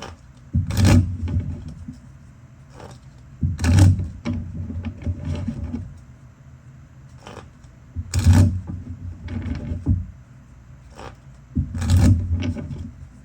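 Deck of tarot cards being shuffled by hand: four short bursts of rapid flicking and clicking a few seconds apart, with softer rustling between.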